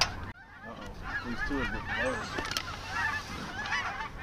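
Large flock of geese calling overhead: a dense, continuous chorus of many overlapping honks and yelps. It drops out for a moment just after the start, then builds back up.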